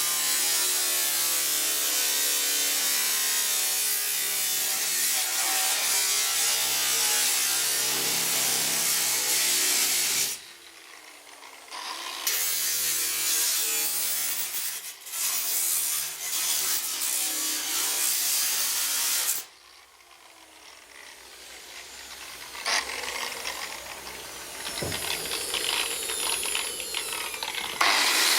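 A 9-inch angle grinder cutting through a car's sheet-metal body with a loud, steady hiss. It stops briefly about ten seconds in and again just before twenty seconds, then starts cutting again.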